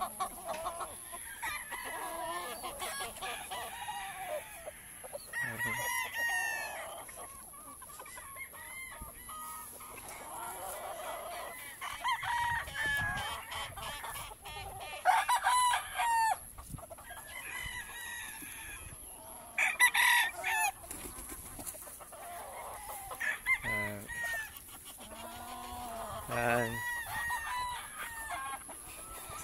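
Many gamecocks crowing and clucking, several birds calling over one another, with the loudest crows around the middle.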